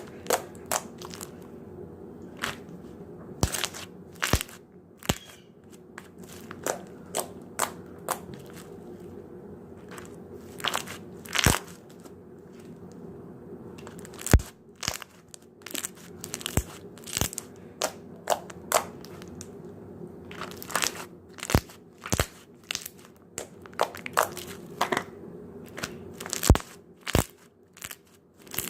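Slime being squeezed and poked by hand, giving irregular sharp pops and crackling clicks as air pockets burst.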